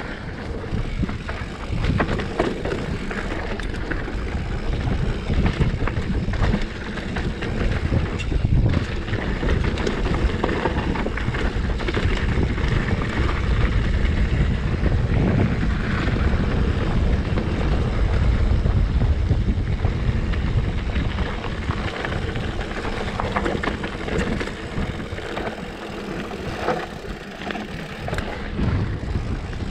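Wind buffeting the camera microphone as a Specialized Stumpjumper mountain bike rolls fast down a dirt trail, its tyres on the dirt and frequent small clicks and rattles from the bike over bumps.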